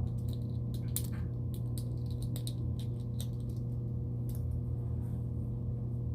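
Faint small clicks and rustles of tiny plastic doll clothes and parts being handled, over a steady low hum.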